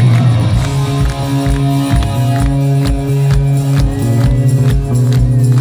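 Rock band playing live through a festival PA, heard from within the crowd: sustained electric guitar and bass notes over a steady kick-drum beat.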